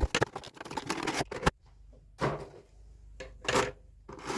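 A diecast car multipack's packaging being handled and opened: a quick run of clicks and rustling, then two louder rustles.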